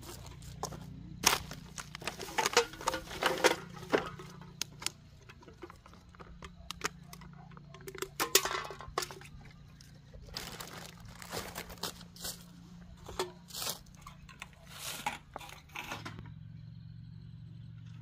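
Irregular crunching and crinkling, in uneven clusters of sharp crackles, over a steady low hum that changes about sixteen seconds in.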